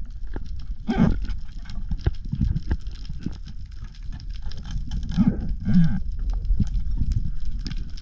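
Underwater ambience picked up by a camera in its housing: a steady low water rumble with scattered clicks and crackles, and louder rushing swishes about a second in and twice between five and six seconds.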